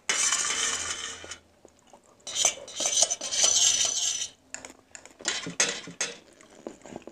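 Metal fork scraping across a stainless steel plate, gathering the last noodles, in two long scrapes. Near the end come a few short, sharper clinks of the fork on the plate as it is set down.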